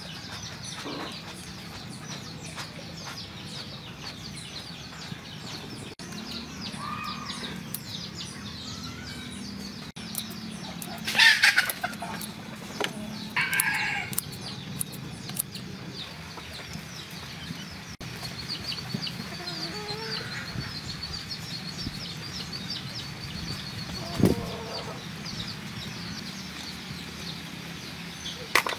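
Chickens clucking, with two loud calls of about a second each, about eleven and thirteen seconds in, over a steady high buzz in the second half.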